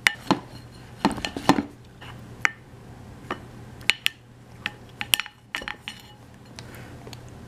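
A plastic baby spoon clinking and scraping against a ceramic bowl: a dozen or so irregular knocks, thinning out near the end.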